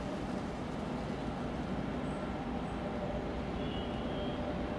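ChME3 diesel shunting locomotive's six-cylinder diesel engine running as it approaches hauling a freight train: a steady low rumble that grows slightly louder.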